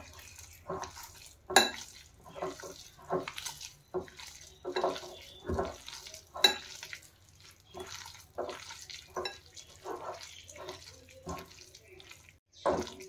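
Sliced onions, spices and gram flour being mixed with water into a batter in a bowl: irregular wet squelching and stirring, with a couple of sharper clicks against the bowl.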